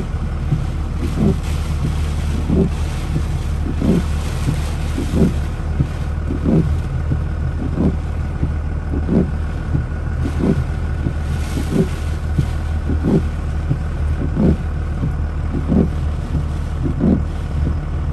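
Inside a vehicle in heavy rain: rain hissing on the windshield and body over a steady low engine and road hum, with the windshield wipers thumping at the end of each sweep about every 1.3 seconds.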